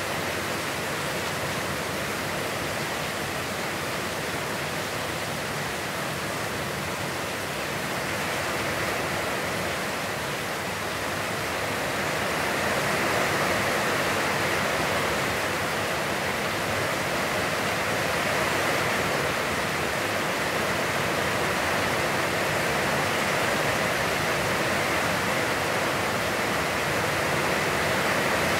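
Heavy rain falling steadily as an even hiss, growing a little louder about halfway through.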